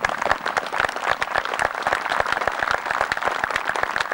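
A crowd applauding: dense, steady clapping that breaks out in full at once and keeps going.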